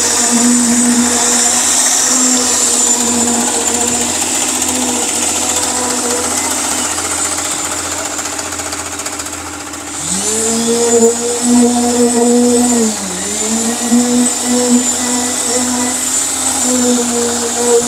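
Electric concrete poker vibrator with a flexible shaft, running with a steady hum while compacting freshly poured concrete in the wall formwork. The hum drops away about seven seconds in, then the motor starts up again about ten seconds in, its pitch climbing to speed, and it sags briefly once a few seconds later.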